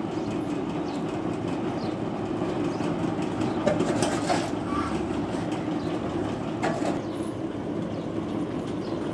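A machine running steadily with an even low drone, with a few brief rustles and knocks about four seconds in and again near seven seconds.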